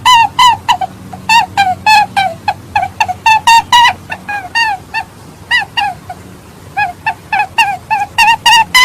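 Many short, honking animal calls repeated in quick runs, several a second, each dipping slightly in pitch.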